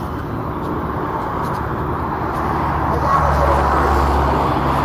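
Steady road-traffic noise of a busy city street, with a low engine rumble swelling about three seconds in as a heavier vehicle passes close.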